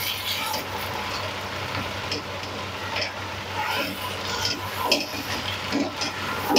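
Chicken, tomatoes and spices sizzling in hot oil in a nonstick wok while a slotted spatula stirs them, with scattered short scrapes and clacks of the spatula against the pan over a steady frying hiss.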